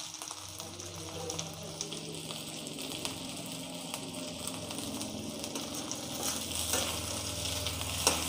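Chopped onion, capsicum, garlic and green chillies sizzling steadily in oil in a black iron kadai, over a steady low hum. Near the end a steel ladle stirs them, scraping and knocking against the pan, with the loudest knock just before the end.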